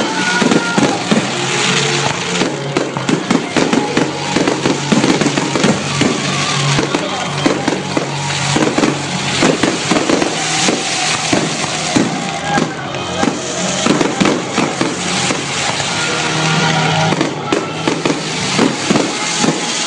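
Fireworks going off in rapid, continuous volleys of bangs and crackles, with music or voices faintly underneath.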